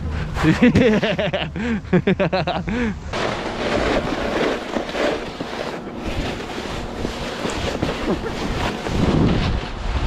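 Wind rushing over the microphone with a snowboard sliding over the snow. In the first three seconds a person's voice calls out in short cries that rise and fall in pitch.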